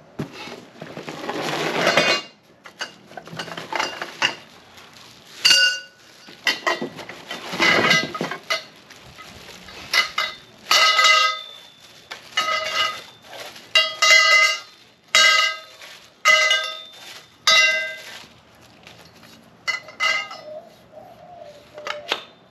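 Metal trampoline frame tubes being slid together and fitted, with scraping and repeated clanks that each ring briefly.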